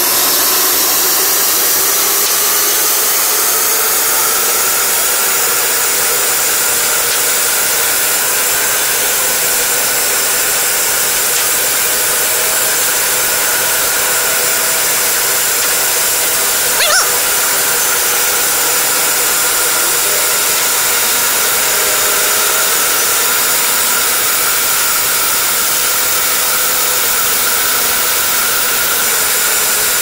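Large band sawmill running steadily, its blade and drive giving a high whine over a hiss, with the pitch rising slightly over the first few seconds. A single sharp click about halfway through.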